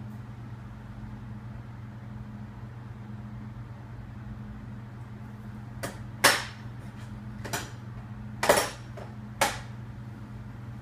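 A steady low electrical hum, with five sharp clicks between about six and nine and a half seconds in, the loudest two near six and eight and a half seconds.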